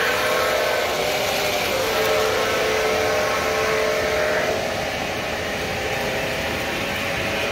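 Model train running: the sound system of an MTH O-gauge BNSF Dash 9 diesel locomotive plays a steady diesel engine drone over the rumble of the cars rolling on the three-rail track. The engine sound eases slightly about halfway through.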